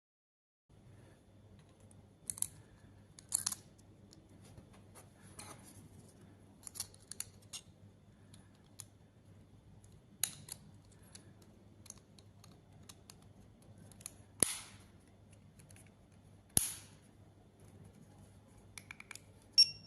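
Irregular sharp clicks and snaps of small plastic parts, several of them much louder, over a faint steady low hum: a smart tag's plastic case being pried open, handled and snapped shut during a battery change.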